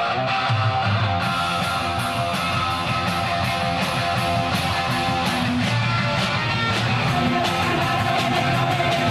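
Rock music with electric guitar; a steady drum beat comes in about a second in.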